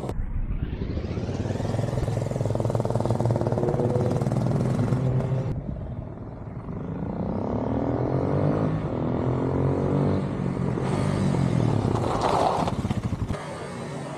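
Motorcycle engine accelerating and easing off as the bike rides around, its pitch rising and falling several times, with abrupt cuts between stretches.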